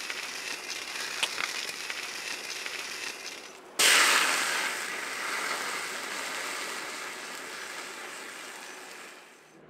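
Fire in a metal tin crackling and hissing with a few sharp pops, then flaring up suddenly and loudly about four seconds in. The rush of flame then dies away slowly.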